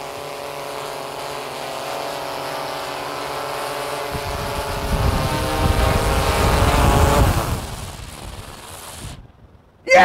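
DJI Matrice 210 quadcopter's motors and propellers humming with a steady multi-tone drone as it hovers and descends close overhead. About four seconds in a low rumbling rush of rotor downwash joins in and swells, then fades, and the sound cuts out shortly before the end as the drone is caught and its motors are stopped.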